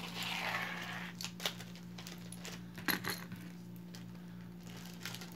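Light metallic clinks and jingling of a metal chain bracelet's links as it is picked up and handled, with a few sharp clicks over a steady low hum.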